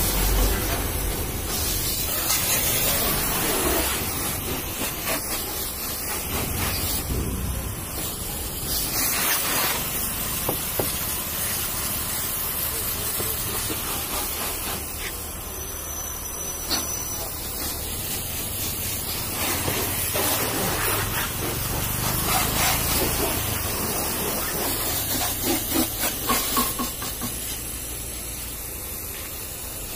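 Pressure washer jet spraying water onto a car's metal body panels and glass: a steady hiss of spray that swells and dips as the jet is swept across the car.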